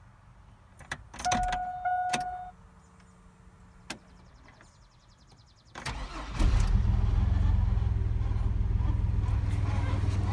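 A dashboard warning chime sounds twice, followed by a faint rapid ticking; about six seconds in, the 2002 Chevy S10's engine cranks and starts from cold, then runs steadily with the grinding noise that the owner hears only on a cold start.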